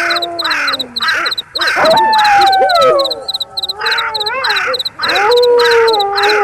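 Wolves howling, several long falling howls overlapping, one fading near the start, another rising in about two seconds in and a third about five seconds in. Behind them, a steady rhythmic chirping of crickets, about three chirps a second.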